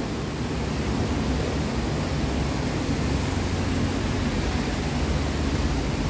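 A steady, even rushing noise with nothing standing out from it.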